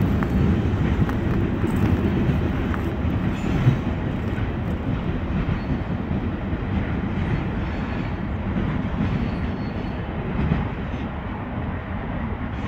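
A freight train of loaded trash cars rolling away along the tracks, its low rumble slowly fading, with one brief sharp knock about three and a half seconds in.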